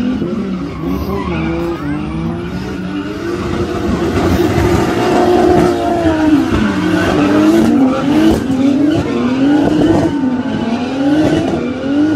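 Several stock car engines revving up and easing off again and again as the cars lap the track, in a steady loud din of overlapping engines whose pitch keeps rising and falling.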